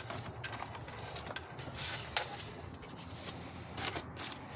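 Scattered light clicks and rubbing as engine-bay parts and grommets are handled and pulled free, over a faint low hum.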